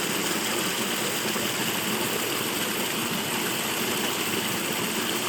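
Steady rushing of running water from a stream, an even noise with no changes.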